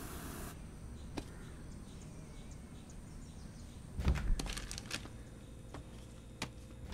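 A short hiss of chapati cooking on a flat pan that stops about half a second in. About four seconds in, a refrigerator door is pulled open with a low thud and a rattle of clinks from the jars in its door shelves, followed by a few light clicks.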